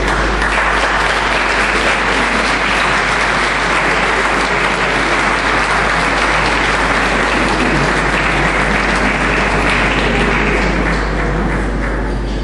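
Audience applauding, a dense sustained clapping that thins out near the end, over a steady low hum.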